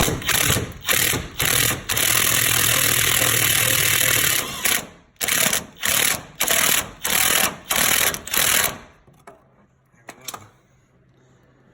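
Electric impact wrench running a fuel-tank strap bolt up: several short bursts, one longer run of about two and a half seconds, then a series of short blips as the bolt snugs down. A few light clicks follow.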